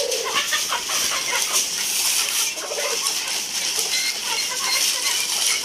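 Caged hens clucking, in short scattered calls.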